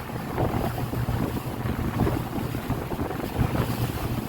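Boat motor running steadily under way, a low hum, with wind buffeting the microphone.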